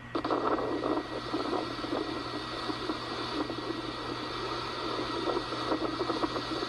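Hurricane-force wind rushing and buffeting the recording microphone, a steady rough noise with rapid fluttering that starts abruptly. It is played back through a small speaker and lacks deep bass.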